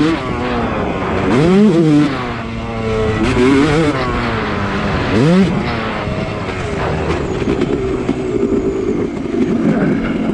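Yamaha YZ250 two-stroke single-cylinder dirt bike engine, revving up and dropping back three times, then running at a steadier pitch for the last few seconds.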